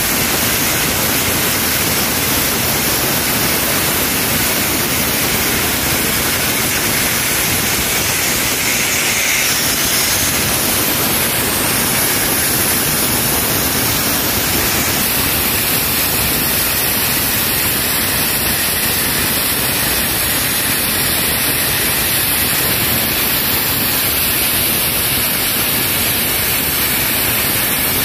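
Sandblaster nozzle blasting a loud, steady hiss of compressed air and grit, stripping rust off an excavator's hydraulic cylinder casing.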